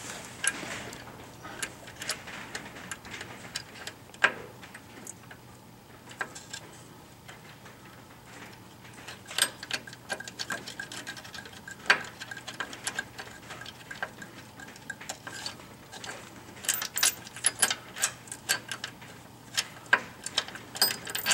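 Scattered short metallic clicks and taps of hand work on the bump stop's mounting hardware as nuts go onto the bolts, coming faster in the last few seconds.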